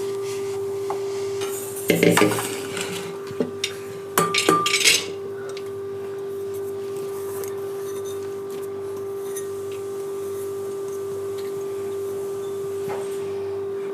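Metal kitchenware clattering and scraping as washed toor dal is tipped into a pressure cooker: two short bursts, about two seconds in and again about four seconds in. A steady single-pitched tone runs underneath throughout.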